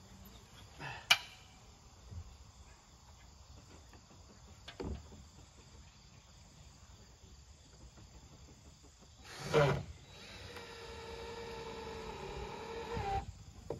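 A sharp knock about a second in and a softer thud near five seconds, then a short loud burst followed by a cordless drill running for about three seconds, driving a screw into a roof board; its whine swells and sags slightly in pitch under load before cutting off.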